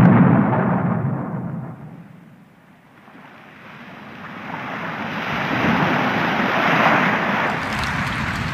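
Casio CT-X700 keyboard sound-effect tones: an explosion-like boom that fades away over about two seconds, then a rush of noise like wind or surf that swells up and holds.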